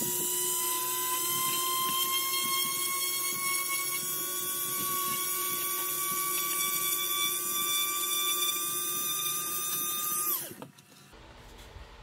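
Small handheld rotary tool with a drill bit running steadily, a high whine, as it drills holes in a plastic scale-model car body. The whine climbs slightly in pitch, then the tool switches off about ten seconds in.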